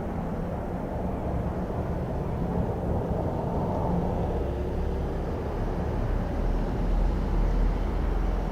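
Distant Boeing 747 airliner at cruising altitude, heard from the ground as a steady low jet rumble, with a deeper rumble swelling near the end.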